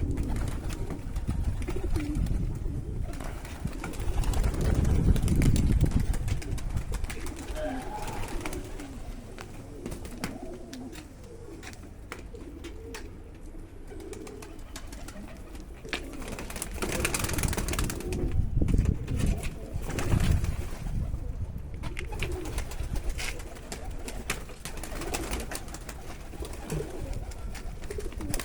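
Domestic pigeons cooing again and again in low, wavering calls, with scattered clicks and knocks.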